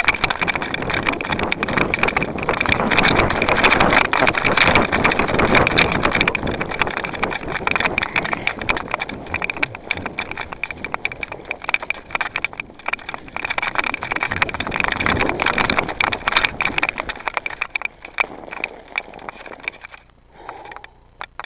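Mountain bike riding down a snow-covered trail: a dense, loud rattling and rushing of the ride that thins out and dies down in the last few seconds as the bike comes to a stop.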